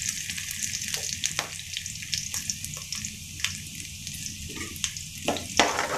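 Chopped garlic sizzling in hot sesame oil in a kadai along with fennel seeds and curry leaves: a steady crackling hiss with scattered sharp pops.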